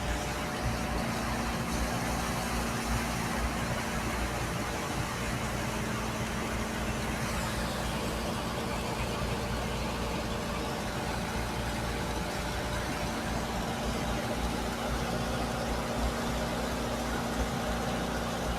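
Steady drone of an engine running alongside the constant hiss of a high-pressure water jet spraying into compacted sand.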